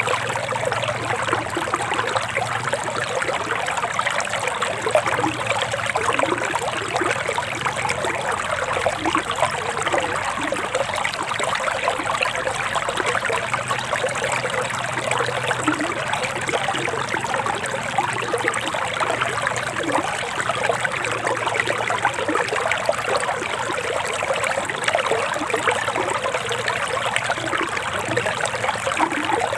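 Forest river water flowing and trickling in a steady rush.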